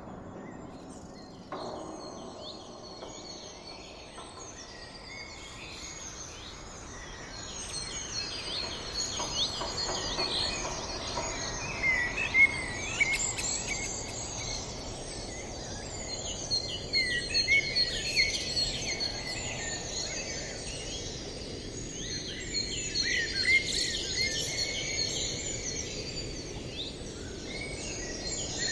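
A dense chorus of small birds chirping and twittering over a steady background hiss, growing busier about eight seconds in.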